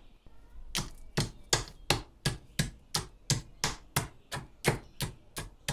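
Pestle pounding hard boiled sweets in a mortar, steady sharp strikes about three a second, starting about a second in.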